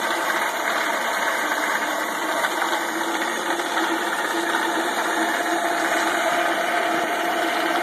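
Homemade ball mill running with its star-roller drum attached: a steady machine hum with a constant tone as the drum turns.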